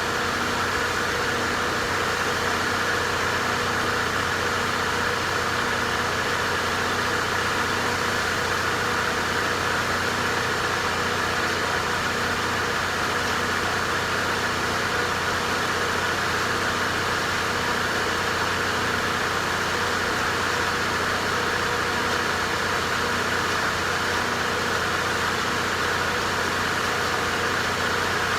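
80 kW Onan standby generator running at a steady speed, carrying the house's load during its monthly load test. It holds an even drone with a steady hum, with no change in speed or level.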